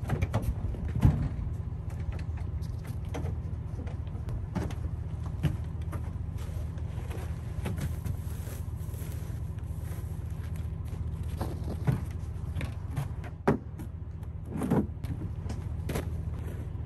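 Pickup truck engine idling steadily, with a few sharp thumps and knocks as the tailgate is dropped and bales are loaded into the bed.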